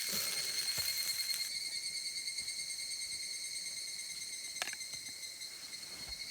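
Crickets or similar night insects singing in one steady, unbroken high trill. A faint hiss drops away about a second and a half in, and there are a couple of soft clicks.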